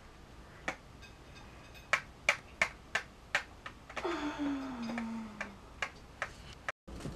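A run of sharp, irregular clicks or taps, a few a second, with a short low tone sliding down in pitch about four seconds in; the sound cuts out abruptly near the end.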